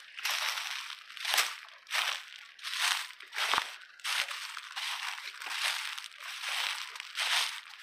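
Footsteps crunching through thick dry fallen leaves at a steady walking pace, about two steps a second.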